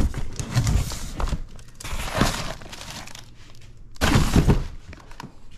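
Cardboard bike shipping box being opened and the packed bike handled inside it: cardboard flaps and packing rustling and crinkling in a few irregular bursts, the loudest about four seconds in.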